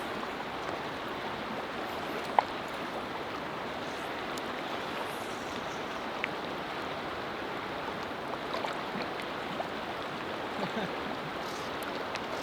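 Steady rushing of fast river water, with a single sharp click about two seconds in.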